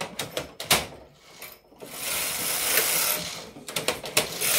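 Jones KH-588 knitting machine carriage drawn across the needle bed on a tuck-stitch row: a few sharp clicks and knocks, then a steady rasping slide of about two seconds starting about two seconds in, then more clicks near the end.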